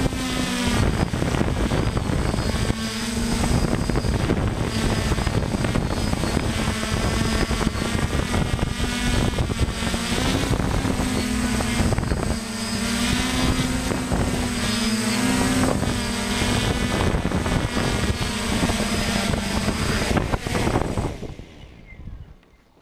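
DJI F550 hexacopter's electric motors and propellers buzzing in flight, the pitch wavering up and down as the throttle changes. About 21 seconds in it lands and the motors spin down, the sound dying away quickly.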